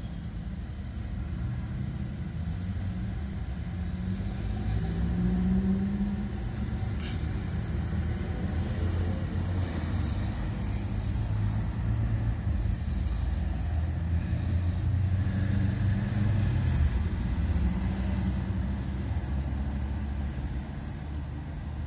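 Steady low rumble of a running motor vehicle engine, with a tone that rises briefly about five seconds in.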